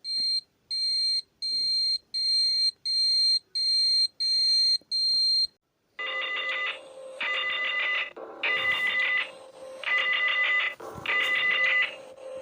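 Emergency alert tones. First comes a run of about eight short, high electronic beeps. After a brief gap, a different, lower alarm made of several pitches pulses on and off about once a second.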